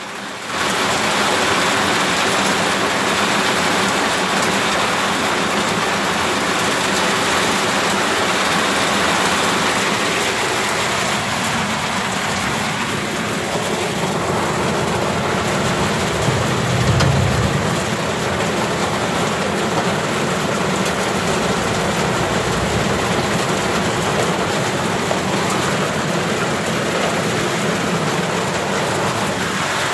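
Heavy rain pouring down in a steady hiss, with a brief low rumble about halfway through.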